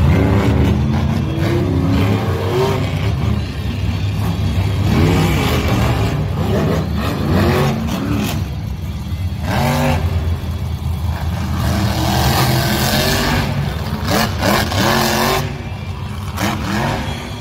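Monster truck engines revving as the trucks drive around a dirt track, the pitch rising and falling again and again, with several louder surges.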